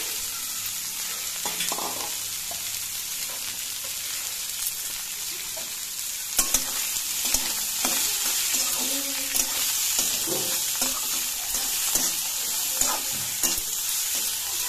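Chopped cauliflower greens sizzling in hot oil in a metal kadai, with a steady hiss. From about halfway, a metal spatula scrapes and taps against the pan as the greens are stirred.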